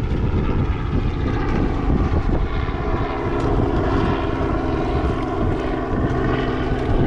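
Heavy wind rumble on the microphone, with a steady droning engine tone over it, clearest from about two seconds in.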